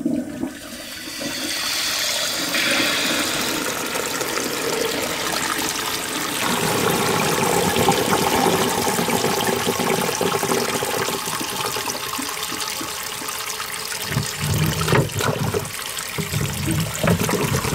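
Victorian Shanks 'Reliable' cast iron cistern flushing, its weight block pushing the water down into the standpipe: a steady rush of water that turns to bursts of gurgling near the end as the cistern empties.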